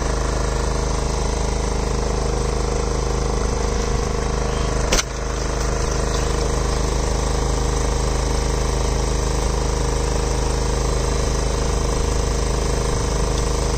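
An engine running steadily aboard a small fishing boat, an even low drone. A brief click comes about five seconds in.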